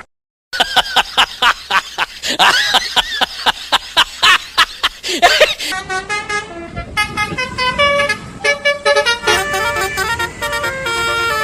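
Multi-tone 'telolet' bus horn playing a tune in short stepped notes. The first half is busier, with rapid clicks and sliding tones.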